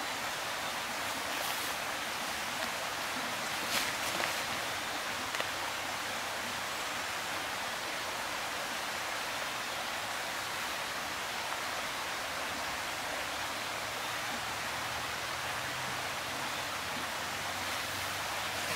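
A steady, even rushing hiss, with a few faint rustles and clicks about four seconds in from the underquilt being handled.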